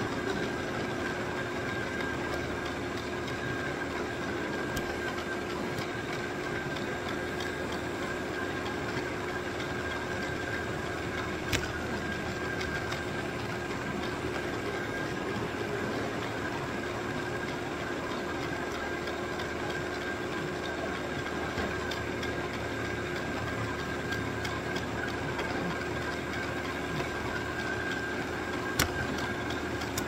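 Robot vacuum running, heard from a camera riding on it: a steady whir with a constant low hum and a higher whine over it. Two sharp clicks stand out, one about halfway through and one near the end.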